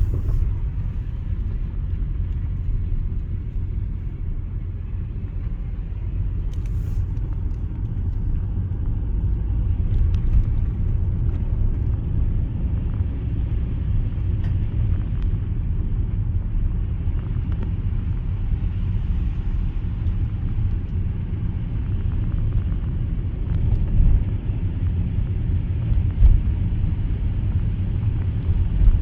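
Car driving on snowy roads, heard from inside: a steady low rumble of engine and tyres, with a few short thumps near the end.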